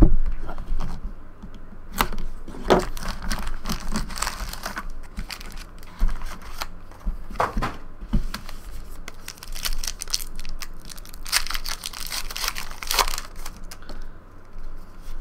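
Trading-card box and packs being handled: wrappers crinkling and tearing, with scattered sharp taps as packs are set down onto stacks.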